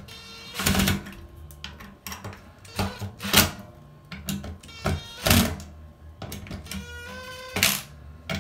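Makita 18V cordless impact driver run in about half a dozen short bursts, tightening the mounting screws of a garbage disposal's sink mounting ring.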